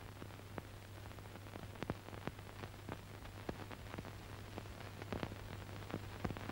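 Surface noise of an old film soundtrack: a steady low hum and hiss with scattered crackling clicks.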